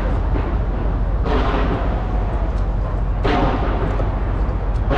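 Fireworks going off from a skyscraper, a continuous low rumble of detonations with three louder, crackling bursts about a second in, past the midpoint and at the very end.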